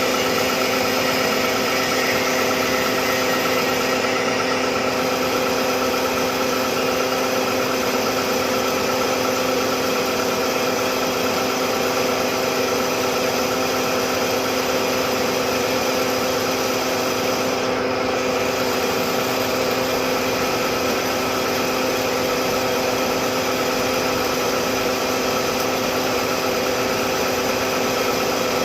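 Metalworking machine running with a steady hum made of several constant tones, unchanging in level throughout.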